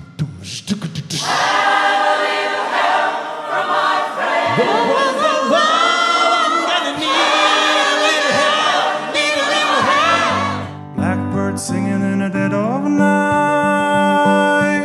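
A male lead singer and a mixed choir singing an upbeat pop song with band accompaniment. About eleven seconds in, the music cuts abruptly to a different piece with long held notes over a steady bass line.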